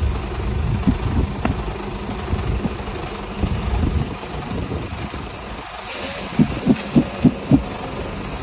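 Truck engine idling with a steady low rumble. About six and a half seconds in, five quick thumps come in a row.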